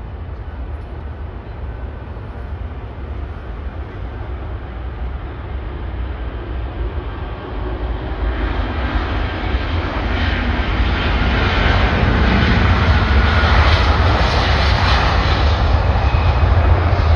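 Jet engines of an Airbus Beluga XL, two Rolls-Royce Trent 700 turbofans, at takeoff power during the takeoff roll. The noise swells from about halfway through and is loudest in the last few seconds, over a steady low rumble.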